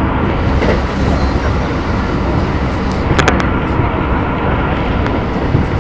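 Running noise inside the cabin of a Keisei 3000 series train at speed: a steady rumble of wheels on rail, with a quick cluster of sharp clicks about three seconds in.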